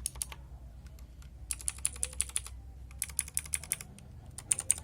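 Typing on a lightly modded budget DareU EK87 mechanical keyboard: quick runs of crisp key clicks in about four bursts with short pauses between them.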